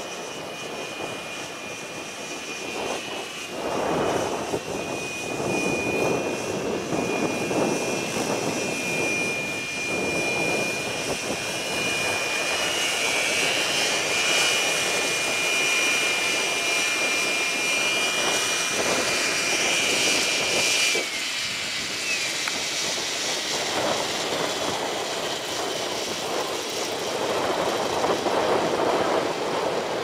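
Align T-Rex 760 RC helicopter's electric motor and rotors whining steadily. The whine climbs a little, then drops away sharply about two-thirds of the way through as the helicopter is throttled down after landing. Gusts of strong wind buffet the microphone throughout.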